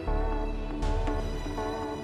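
Background music with a steady beat and a deep bass.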